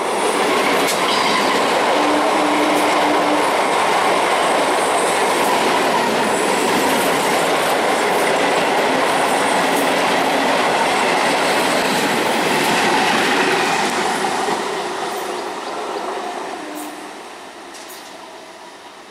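Indian Railways electric multiple-unit local train passing close at speed: a loud, steady rush of wheels and coaches with rail clatter, fading away over the last few seconds as the train recedes.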